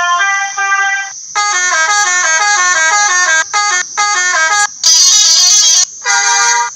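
Telolet horn, the multi-tone musical air horn of Indonesian buses, playing fast stepped melodies in loud bursts with short breaks between them.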